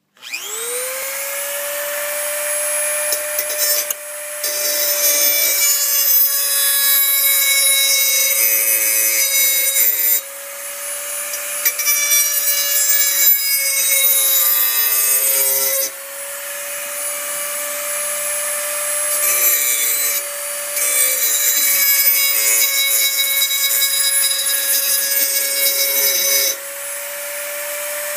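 A Dremel rotary tool spinning up to a steady high whine, then grinding the edge of a steel lawn mower blade with a grinding stone. The grinding comes in three spells of harsher, louder grinding, with the tool running free in between.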